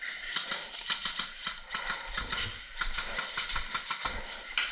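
A rapid, irregular run of sharp clicks and clatter, several a second, with a few low thumps about two seconds in and again near four seconds.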